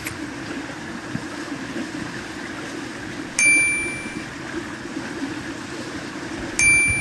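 Two short, bright chime sound effects, about three seconds apart, each ringing and fading quickly. They are the click dings of an animated like-and-subscribe overlay, over a steady low hum of background noise.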